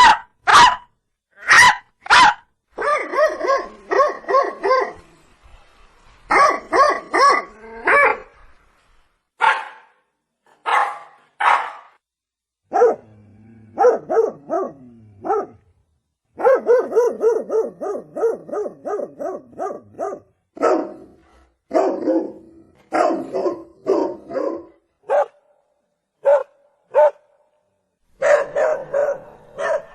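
Dog barking repeatedly: a few sharp single barks, then quick runs of barks at about four a second, broken by short pauses.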